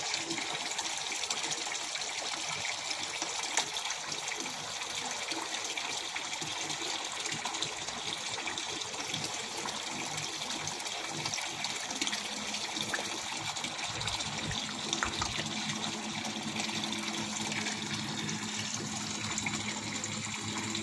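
Water pouring and splashing steadily into a koi pond, with the small splashes of koi at the surface. A faint low hum joins about two thirds of the way through.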